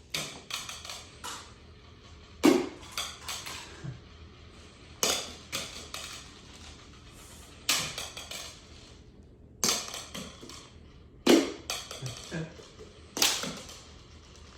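Tossed rings hitting cones and the floor in a ring-toss game: about six sharp clacks, each followed by a short rattle, one every two seconds or so.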